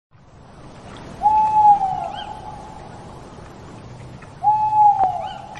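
An owl hooting twice, about three seconds apart; each call is a clear, steady note that falls away at its end.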